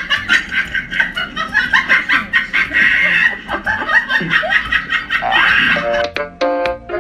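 Rapid, high-pitched giggling laughter with quick repeated bursts. About six seconds in it gives way to a keyboard melody of clear sustained notes.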